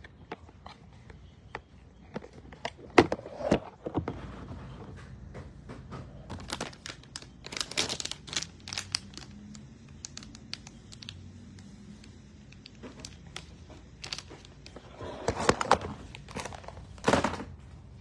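Handling noise from the recording phone: crinkly rustling with scattered clicks and knocks as it is moved about and covered, in bursts about three seconds in, around eight seconds, and again near the end.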